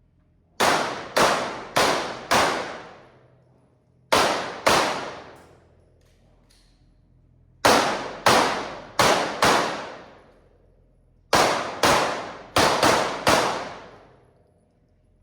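Pistol shots fired in four quick strings: four shots, then two, then four, then five. Each shot is loud and sharp and rings out for a moment before the next.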